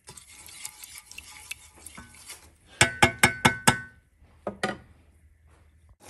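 A spoon stirring sugar syrup in a stainless steel pot, then rapped about six times in quick succession against the pot, each knock ringing briefly, with two more knocks a moment later.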